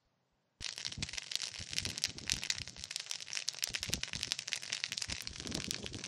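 Dry grass and brush burning in a wildfire: dense, irregular crackling and popping that starts suddenly about half a second in.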